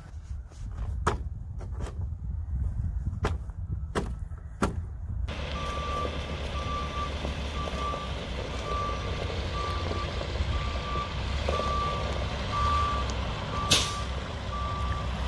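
A few sharp knocks over low rumble. Then, from about five seconds in, a truck-mounted forklift drives off a delivery flatbed with its engine running and its reversing alarm beeping steadily, about two beeps a second, with one loud knock near the end.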